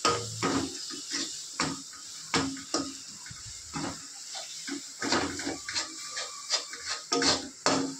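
A metal spatula scraping and clinking against a steel kadhai in quick, irregular strokes as spice masala is stirred and fried in oil, over a steady sizzle.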